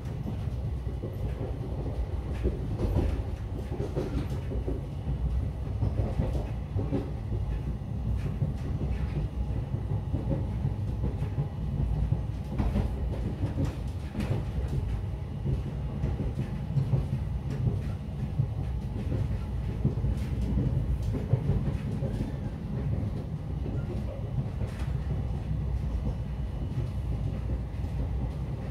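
Train running on rails: a steady low rumble with scattered clicks and knocks from the wheels and carriages.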